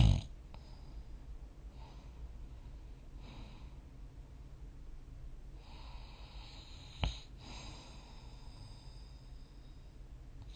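A sleeping person between snores: a loud snort trails off right at the start, followed by a few soft breaths, with one short sharp click about seven seconds in.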